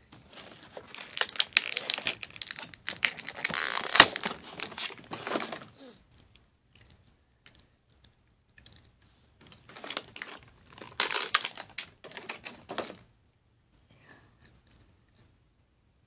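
Clear plastic toy packaging crinkling and crackling as it is handled, in two bursts of busy rustling with many sharp clicks, the second starting about ten seconds in.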